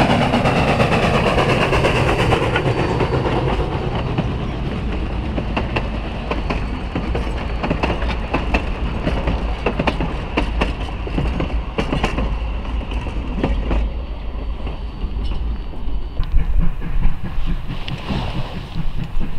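Steam train crossing a trestle bridge. The locomotive's sound eases off over the first few seconds, then the wheels click unevenly over the rail joints above a steady low rumble.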